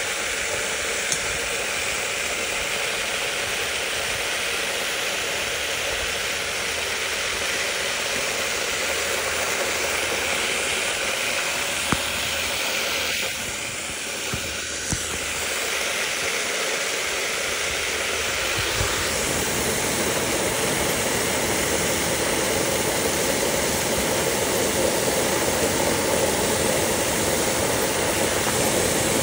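Garden hose spray nozzle shooting a jet of water onto wood mulch: a steady rushing hiss of the spray and its landing, easing briefly about halfway through and growing a little louder near the end.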